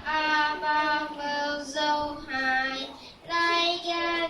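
A child's voice singing a melody in long held notes, with a short pause about three seconds in.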